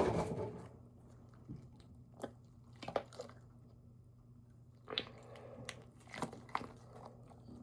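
A person biting and chewing a snack close to the microphone: a louder bite at the start, then soft, scattered mouth clicks and crunches.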